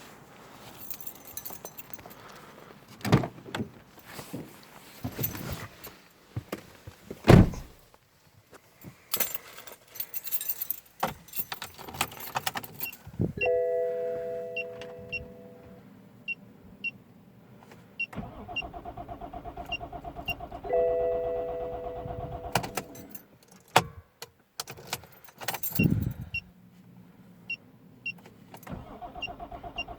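Keys and handling knocks, then a BMW 525d being tried: the starter cranks the engine in two runs of fast, even pulses without it catching, consistent with the no-start fault. Held dashboard warning tones and a regular light ticking sound over it.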